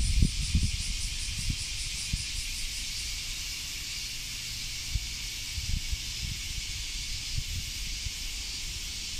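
A chorus of cicadas singing as a steady, dense, high-pitched hiss, with a faster pulsing call of about four pulses a second over the top for the first three seconds. Irregular low thumps on the microphone sit underneath.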